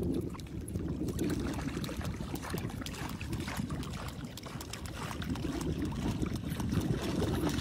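Water splashing, dripping and trickling around a kayak being paddled, with a scatter of small splashes throughout.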